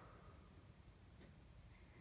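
Near silence: faint room tone in the pause between snores.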